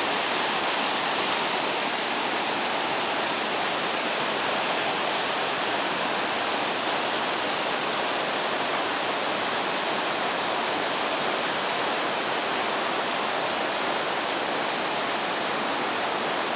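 Whitewater rapids of a rocky mountain river rushing over boulders: a steady, unbroken rush of water.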